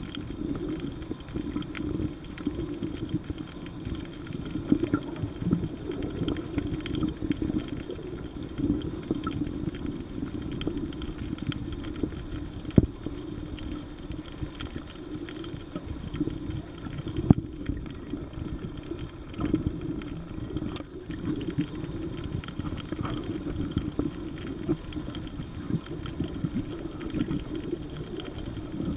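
Water heard through a camera that is under the sea: a steady, muffled wash that swells and fades, with two sharp clicks near the middle.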